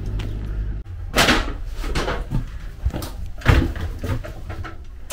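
A steady low hum stops abruptly just under a second in. It is followed by a series of knocks, rustles and thumps of things being handled, the loudest about a second in and a heavy thump at about three and a half seconds.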